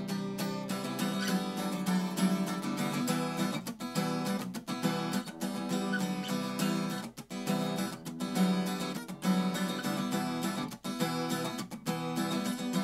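Beat-up Stagg acoustic guitar, strung partly with electric-guitar strings, playing a chord riff with the notes ringing together; the sound dips briefly twice, about seven and eleven seconds in.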